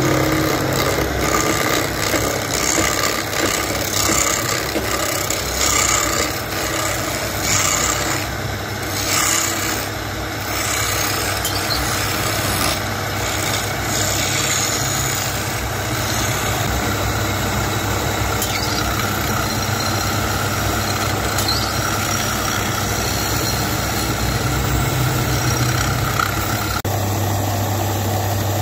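Wood lathe running with a steady motor hum while a hand-held turning chisel cuts the spinning wooden handle blank, a rough scraping that comes and goes in the first half and then evens out. The sound changes abruptly near the end.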